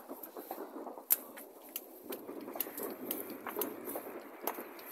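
Scattered sharp cracks and pops of distant fireworks and firecrackers, the loudest about a second in and another near the end, over a steady rushing noise.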